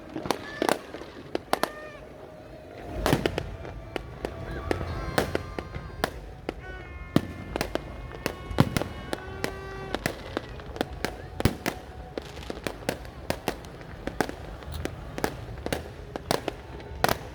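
Fireworks going off: many sharp bangs and cracks in quick succession, with a deep rumble building about three seconds in.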